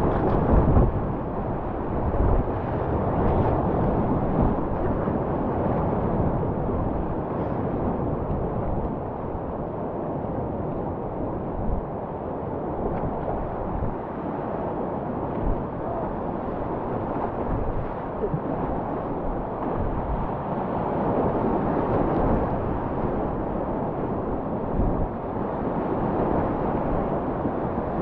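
Whitewater rapids rushing around a kayak, heard from a camera on the boat's deck: a steady, dense rush of water with frequent low thumps of water and wind buffeting the microphone.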